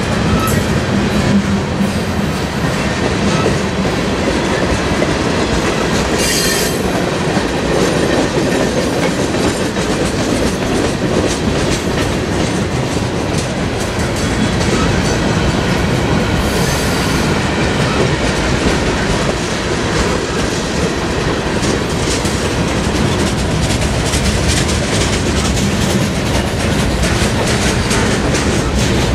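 Freight train cars rolling past at close range: a steady rumble of steel wheels on rail with continual clickety-clack over the rail joints. Two short high hisses come about six and sixteen seconds in.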